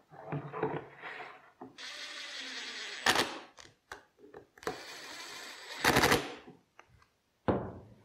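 Makita cordless impact driver driving screws into a plywood end plate: two runs of about a second and a half each, each getting louder at the end as the screw seats. Light clicks of parts being handled come between the runs.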